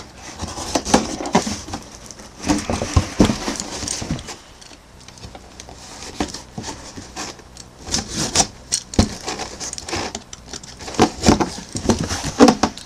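Cardboard shipping box being handled and opened by hand: irregular rustling and scraping of cardboard, with scattered taps and clicks.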